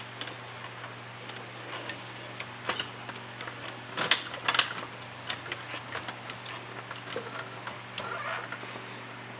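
Scattered light knocks and clicks of blocks and stands being handled and set under a car, loudest in a short cluster about four seconds in, over a steady low hum.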